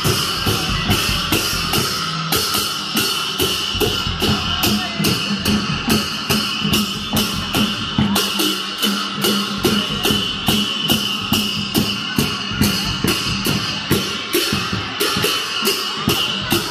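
Newar dhime barrel drum beaten with clashing cymbals in a steady fast rhythm, about three strikes a second, over a steady high drone. This is traditional Lakhe dance music.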